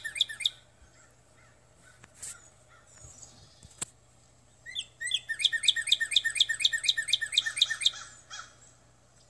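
A songbird singing a fast run of repeated sharp chirping notes, about seven a second. A short run ends just after the start, then a longer run of about three seconds follows from about halfway through.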